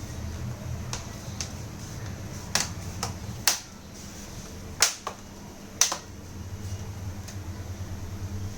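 Sharp clicks and taps from the plastic laptop case being handled during reassembly after a RAM upgrade: about nine in all, the three loudest near the middle, over a low steady hum.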